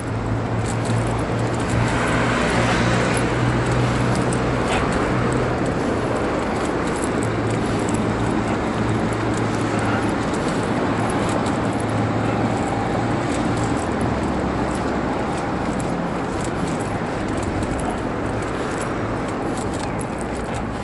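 Road traffic noise from a city street heard from a wheelchair rolling along a paved sidewalk, with a steady low hum and many small rattling clicks throughout. The noise swells for a couple of seconds about two seconds in.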